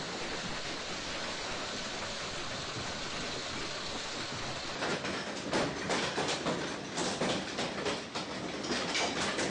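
Heavy hail falling: a steady hiss of hailstones at first, then from about five seconds in a dense, uneven clatter of hailstones striking hard surfaces.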